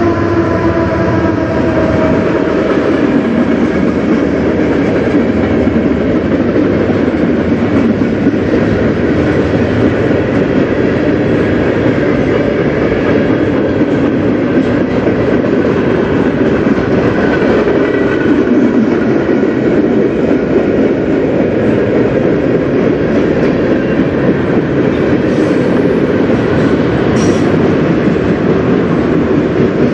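Freight train cars rolling past at speed: a steady, loud rumble with wheels clattering over the rails. In the first couple of seconds a falling engine hum trails off as the CN diesel locomotive goes by.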